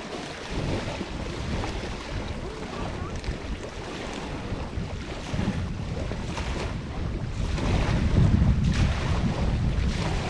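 Wind buffeting the microphone over small waves washing onto a pebble beach. The wind rumble grows stronger in the second half.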